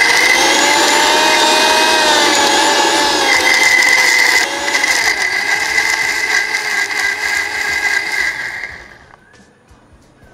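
Electric mixer grinder (mixie) running at full speed with a steady motor whine, grinding onion, green chilli, ginger and garlic into a paste. Its pitch drops slightly about five seconds in, and it switches off about nine seconds in.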